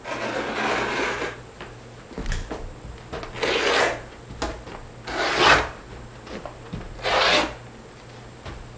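Glued-down wall-to-wall carpet being torn up from a subfloor by hand, in four ripping pulls; the third is the loudest.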